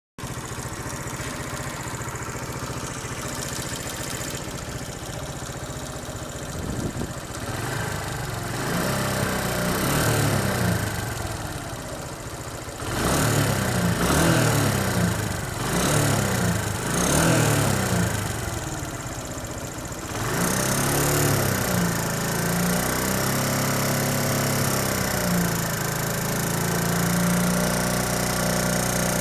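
SYM XS125 motorcycle's single-cylinder engine running at idle, then revved in a series of throttle blips before settling back to idle. It has a knock in it that the owner is sure comes from neither the valves nor the timing chain.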